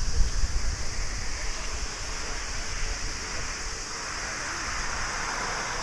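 Airbus A321neo airliner's jet engines at taxi power, a steady rushing hiss that swells about four seconds in as the aircraft turns toward the runway. Wind buffets the microphone with low rumbles in the first two seconds.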